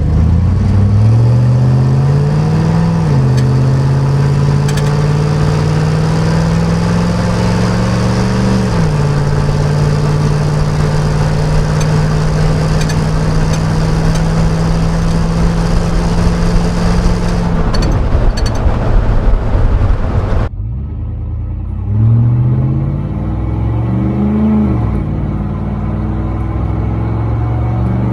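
5.3L LM7 V8 truck exhaust through a single-chamber performance muffler, accelerating. The engine note climbs and drops at upshifts about 3 and 9 seconds in, then holds a steady cruising drone. About 20 seconds in the sound breaks off abruptly, and a second pull begins with quick rises and shift drops.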